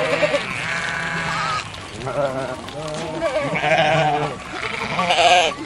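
Sheep bleating, a run of four or five wavering bleats one after another.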